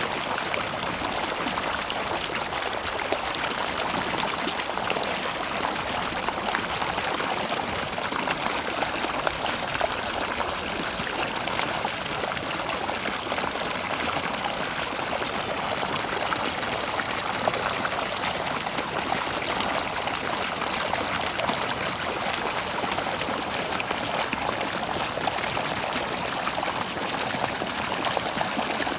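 Steady running water, a continuous even rush and trickle.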